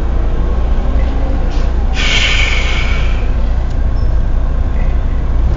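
Steady low rumble of a car driving slowly, heard from inside the cabin, with one brief hiss lasting about a second about two seconds in.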